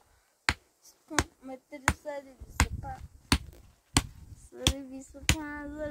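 A steady series of sharp blows, about one every two-thirds of a second, like a tool striking in a regular rhythm. A high-pitched voice is heard between the blows.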